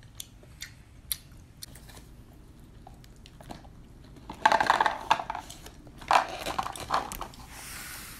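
A few light clicks, then a clear plastic packet crinkling loudly in two bursts of a second or so each as it is handled and emptied over a paper cup.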